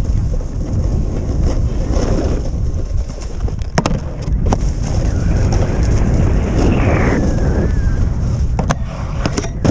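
Wind rumbling on the microphone during a snowboard run, with the board's edges hissing and scraping over snow, loudest in the middle. Several sharp knocks come about four seconds in and again near the end.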